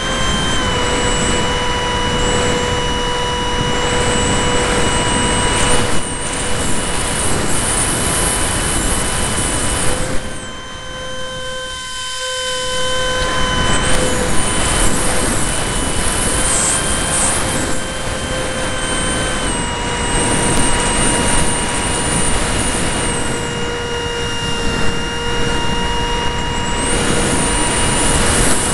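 The electric ducted fan of a ParkZone Stryker model jet, heard from a camera on board in flight: a steady whine with a rush of air. About ten seconds in it drops away for a couple of seconds, then rises back, and its pitch shifts slightly as the throttle changes.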